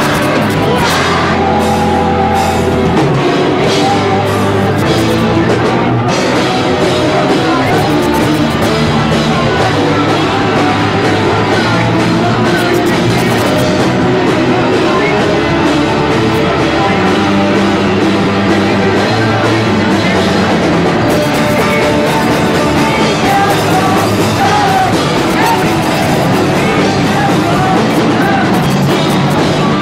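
Rock band playing loudly, with drum kit and guitars.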